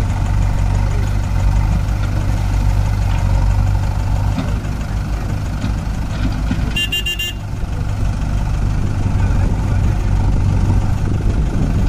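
Mahindra 585 DI tractor's four-cylinder diesel engine running steadily, pulling a fully loaded trolley through mud, with backhoe loader engines running alongside. A vehicle horn toots once, briefly, about seven seconds in.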